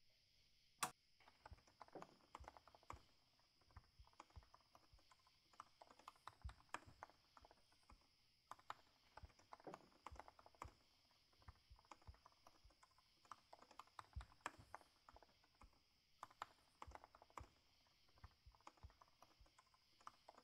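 Typing on a laptop keyboard: quick runs of key clicks with short pauses between them, beginning with one sharper click about a second in.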